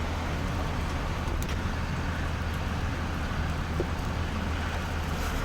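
Steady low hum of a stopped car's engine idling, under a constant hiss of wind and outdoor noise.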